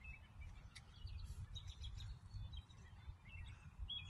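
Faint outdoor ambience: small birds chirping in short, scattered calls over a low, steady rumble.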